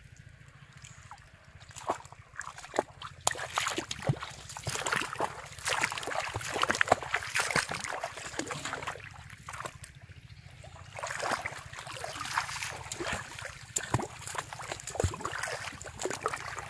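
Hands and legs splashing and sloshing in shallow muddy water: a quick, irregular run of small splashes and wet crackles that starts about two seconds in and eases off briefly near the middle.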